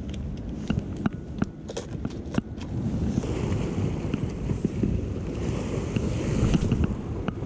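Crackling and clicking of a plastic bag and fishing tackle being handled during the first three seconds. Then surf washing against rocks, with wind buffeting the microphone.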